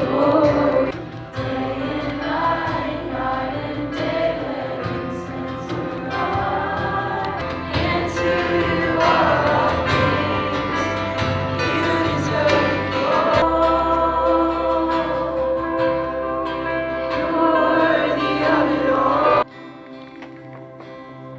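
Live contemporary worship music: a band playing while a group of voices sings. About nineteen seconds in it cuts off suddenly to a much quieter passage.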